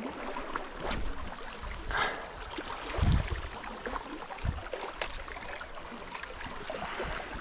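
Sea water washing at the shore, with wind, and a few low thumps.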